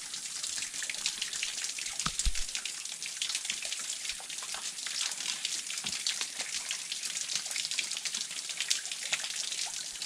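Spring water trickling and splashing: a fast, irregular patter of small splashes, with a soft low thump about two seconds in.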